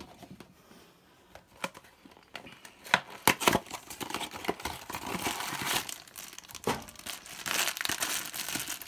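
A small cardboard blind box being torn open, with a few sharp snaps about three seconds in, then the black foil bag inside crinkling as hands handle and open it.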